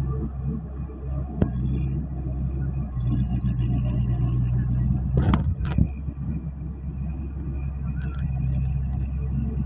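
Diesel engine of a Kangro paddy tractor running steadily as it works a flooded rice field: a low, continuous drone. Two sharp knocks come a little past halfway.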